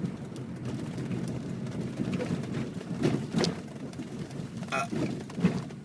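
Several short, sudden hiccups over a steady low rumble: the clearest comes about three and a half seconds in, and two more come near the end.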